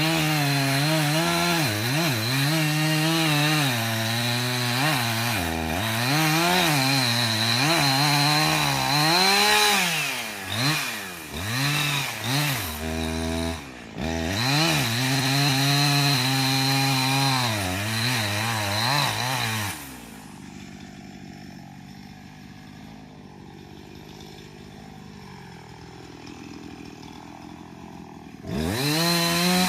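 Chainsaw running and repeatedly revving up and down. About two-thirds of the way through it drops much quieter for roughly eight seconds, then revs up loudly again near the end.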